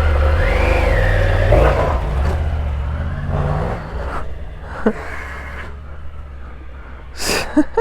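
A motor vehicle engine running with a low steady hum, its pitch rising and falling twice in the first few seconds before it fades away, followed by a few sharp clicks near the end.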